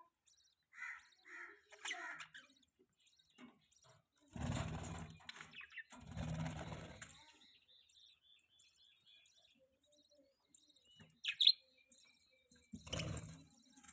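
Pet budgerigars chirping and chattering: a few short chirps near the start, soft warbling chatter in the middle, and one sharp, loud call about eleven seconds in. Three louder, noisier bursts, around four and a half, six and a half and thirteen seconds, break in among the calls.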